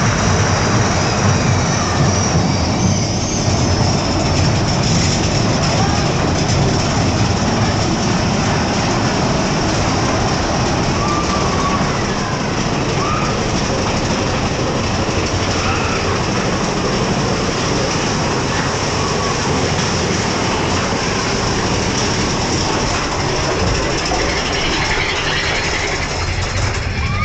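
Mine-train roller coaster running on its track, heard from aboard: a loud, steady rumble and clatter of the wheels on the rails.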